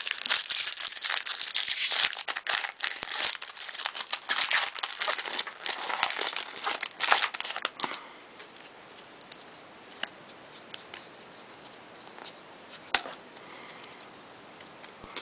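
Wrapper of a pack of baseball cards crinkling and tearing as it is handled and opened: a dense run of crackles for about eight seconds, then quiet apart from a couple of light taps.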